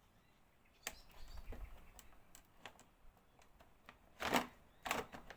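Hands handling plastic motorcycle fairing parts and small push-in trim clips: a few sharp plastic clicks and taps with light rustling, the loudest knock about four seconds in.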